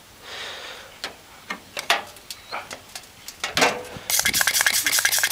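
Hand-held trigger spray bottle spraying degreaser onto a rangehood fan motor: a short hiss, a few separate clicks, then from about four seconds in a fast, louder run of squirts and trigger clicks.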